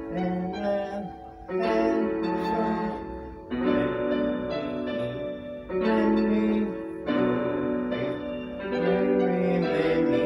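Electronic keyboard playing a slow piece in full, sustained chords, with a new chord struck every second or two.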